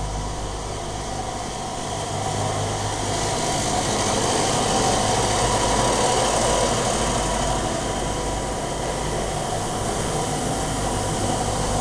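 Steady mechanical drone of dairy milking machinery running: the milking vacuum pumps, with a steady low hum beneath. It swells somewhat louder in the middle.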